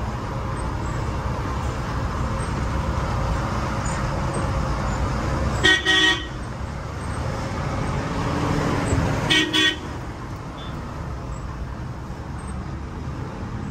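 Diesel engine of a 16-wheel Mahindra Blazo X truck running steadily as the truck is driven out, with two short horn blasts a few seconds apart.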